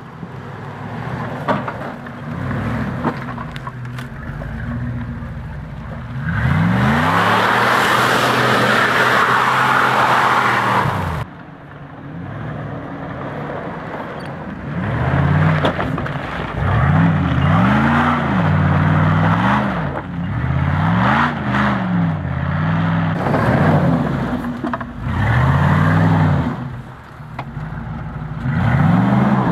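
Jeep Grand Cherokee engine revved in repeated bursts while driven through mud, its pitch climbing and falling with each blip of the throttle, about seven times. A loud rushing noise covers it for about five seconds in the first half.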